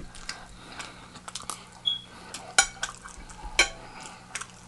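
Scattered light clicks and clinks of a plate and utensils being handled, with a couple of sharper clicks in the second half and one brief high ring.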